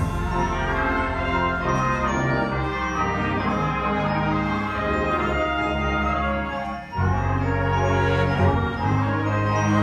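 School concert band of woodwinds and brass, with tuba and electric bass, playing a piece. The music dips briefly about seven seconds in, then strong low notes come back in.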